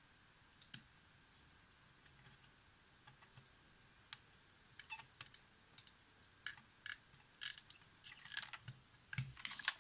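Scattered light clicks and taps of small hand tools on a Polaroid SX-70 camera's circuit board while the old capacitor is worked loose, sparse at first and coming more often from about halfway through.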